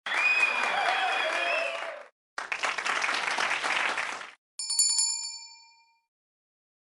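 Two stretches of applause-like noise, then a single bright bell ding whose tones ring out for about a second before everything stops.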